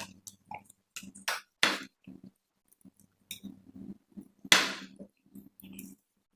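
People eating noodles: a run of short slurps, the loudest and longest about four and a half seconds in, with chewing and low mouth sounds between them.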